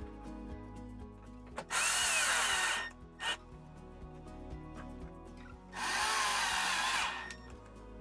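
Milwaukee cordless screwdriver driving screws in two runs of about a second each, its motor pitch bending as each screw snugs up.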